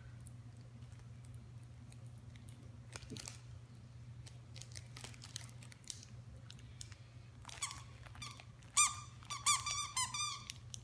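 A dog biting a squeaky plush duck toy, squeezing its squeaker in a quick run of high squeaks during the last three seconds. The loudest squeak comes about nine seconds in.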